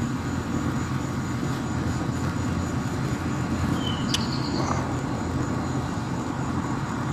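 A steady low rumble of outdoor background noise, with a single sharp click about four seconds in.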